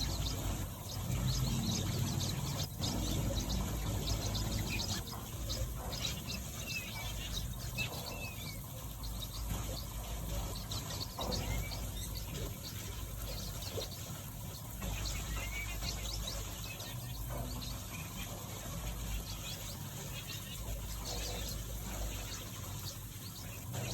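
Mixed aviary finches giving scattered short chirps and twittering calls over a steady low rumble.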